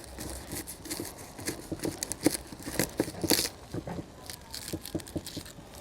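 A knife cutting through a whole garlic bulb, its papery skin crackling and crunching in quick irregular clicks.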